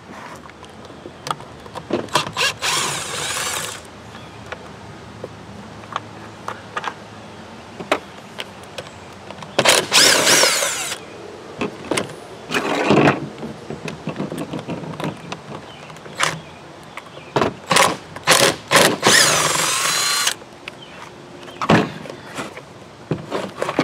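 Cordless drill with a long Torx bit backing out T25 screws from a leaf blower's plastic housing: four main runs of motor whine of about a second each, with the pitch sliding as the screws free. Sharp clicks and knocks of tools and parts come between the runs.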